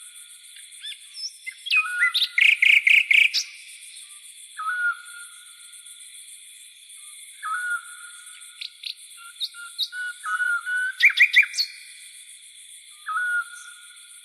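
Crickets and cicadas chirring steadily under a night bird's short whistled note, repeated every few seconds. Louder bursts of rapid bird chirps come about two seconds in and again about eleven seconds in.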